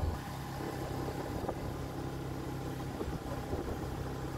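Motorbike engine running steadily while riding along, its low hum dropping slightly in level and pitch right at the beginning.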